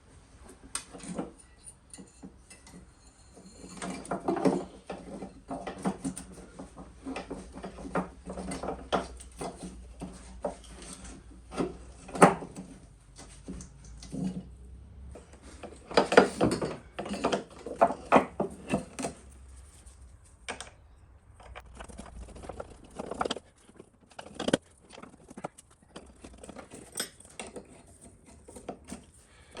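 Metal parts and hand tools clinking, knocking and scraping in irregular bursts as components are test-fitted and loosely bolted into a jet ski's engine bay.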